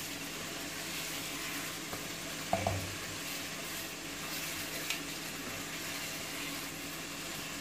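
Potato curry sizzling in a non-stick pot while a wooden spoon stirs it, a steady hiss, with one brief louder sound about two and a half seconds in.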